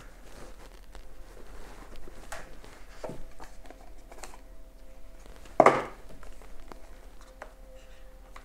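Cardboard phone box being handled and opened: the outer sleeve slid off and the inner box lid worked open, with soft rubbing and light taps of card, and one louder knock about halfway through.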